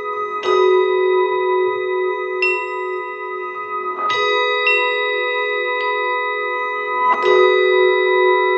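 Mallet keyboard percussion with electronics: about six separate mallet strikes on pitched bars, each note ringing on and overlapping the others into a sustained, bell-like chord.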